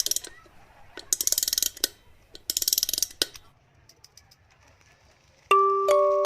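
Box cutter blade being slid through its notches in three short bursts of rapid clicking. Chiming mallet-percussion music starts about five and a half seconds in.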